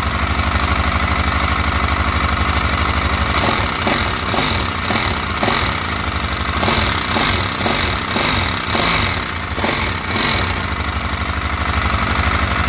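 Rebuilt 166FMM single-cylinder motorcycle engine idling with an even firing beat, a little unsteady through the middle stretch. It is run only briefly while oil is not reaching the cylinder head: the piston side gets lubricated, but the head runs dry.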